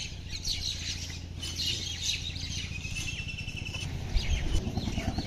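Small birds chirping, with short high calls and a brief rapid trill, over the low, even rumble of an engine running, which grows louder about four seconds in.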